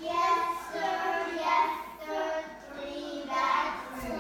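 A young child singing a tune in a high voice, in short phrases of held notes.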